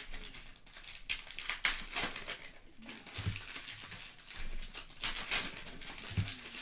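A handful of wrapped trading card packs crinkling and rustling as they are shuffled in the hands, with two soft low thumps, one about halfway through and one near the end.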